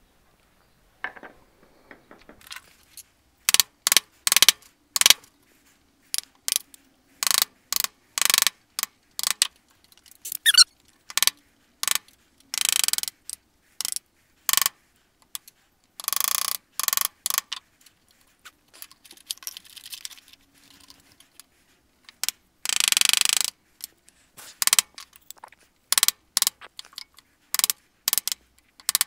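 Hand woodworking on a small box: a run of sharp knocks at irregular intervals, with a few longer rasping strokes of about a second each in between.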